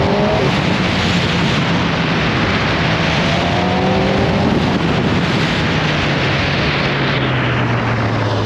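Kawasaki ZX-10R's inline-four engine pulling up through the revs twice, with heavy wind rush over it. Near the end the engine eases off and settles to a lower note.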